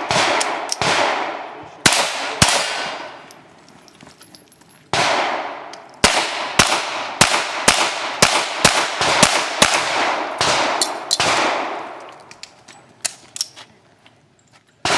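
Pistol shots fired in quick strings: a few in the first couple of seconds, then a fast run of a dozen or more from about six to eleven seconds in, and a couple more near the end, each with a long fading tail.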